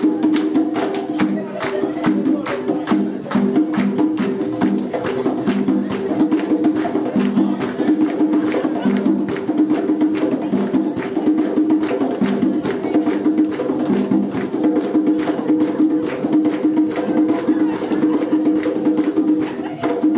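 East African-style drum and percussion music playing continuously. Drums and shakers or rattles keep a quick, steady beat under a repeating melodic line.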